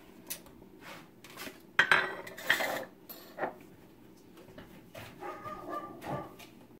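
Metal whisk stirring a pot of thick barbecue sauce: a series of irregular clinks and knocks against the pot, loudest about two seconds in.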